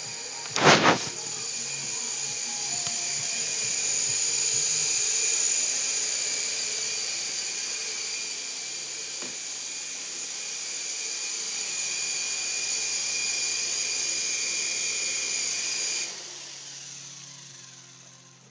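Syma S031G toy RC helicopter in flight: a steady high whine from its small electric motors and rotors that swells a little and then cuts off suddenly near the end as the motors are shut down. A loud double knock about a second in.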